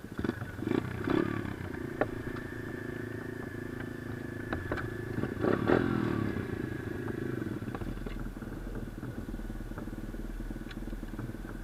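A 125 cc pitbike engine running and revving. The revs surge about five to six seconds in, then settle to a steady run. A few short sharp knocks are heard along the way.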